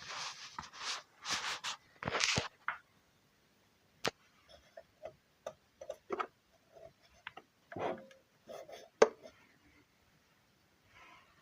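Handling sounds of hands and tools at work: several brushing or scraping strokes in the first few seconds, then scattered clicks and short knocks, the sharpest about nine seconds in.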